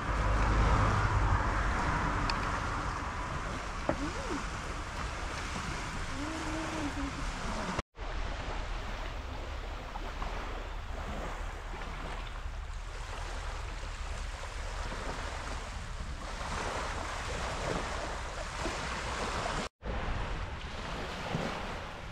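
Small sea waves washing onto a beach, with wind on the microphone. The sound drops out for an instant twice, at about 8 seconds and at about 20 seconds.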